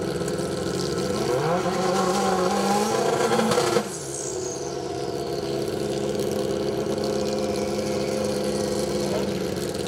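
Drag-racing motorcycle engines running at the starting line. One revs up, rising in pitch over a couple of seconds, then stops abruptly nearly four seconds in, and a steady idle goes on.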